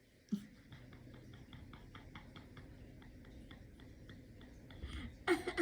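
A sleeping Chihuahua snoring as a faint, fast, regular clicking, about five or six clicks a second, with a short louder burst of noise near the end.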